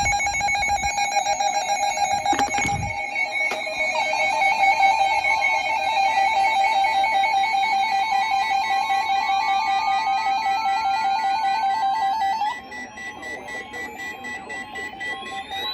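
Music made of sustained steady tones. About twelve and a half seconds in it drops in level and a slowly rising glide comes in.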